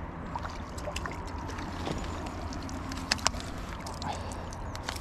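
Water sloshing and splashing as a small trout is landed in a long-handled landing net, then water dripping and pattering off the mesh as the net is lifted clear, with a few sharp clicks about three seconds in, over a steady low rumble.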